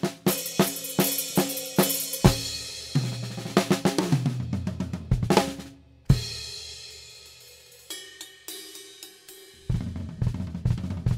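Acoustic drum kit played solo: fast strokes on drums and cymbals, then a loud hit about six seconds in that rings out and fades. A few sparse strikes follow, and busy playing starts again near the end.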